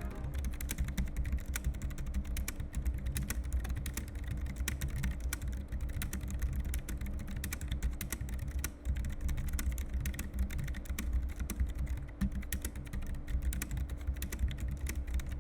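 Typing on a Keychron B1 Pro ultra-slim keyboard with scissor-mechanism keys: a continuous, rapid run of light key clicks.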